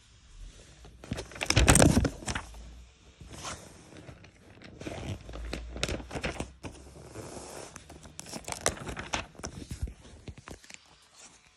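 Paper sticker having its backing peeled off and the sticker album's pages being handled: irregular crinkling and rustling with light clicks, loudest about two seconds in.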